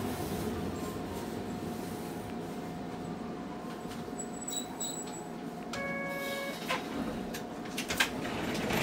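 A Hankai Tramway tram's running noise dies down to a low steady hum as it slows. About halfway there are two short high beeps, then an electronic chime about a second later, and a few sharp clicks near the end.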